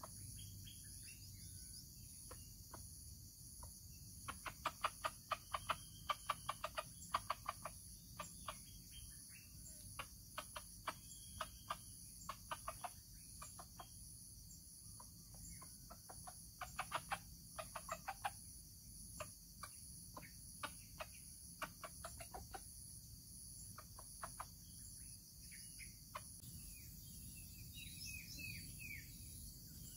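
A rooster clucking in quick runs of short clucks, several a second, that come and go in bursts, over a steady high-pitched insect drone.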